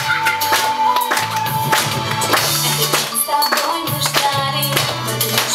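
Upbeat music with a steady beat of about two beats a second, with a bass line and held melody notes.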